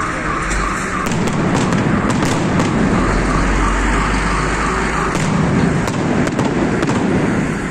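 Fireworks salute: rapid crackling and popping of bursting shells over a continuous low rumble of explosions. A wavering alarm-like tone is heard under it for the first second or so.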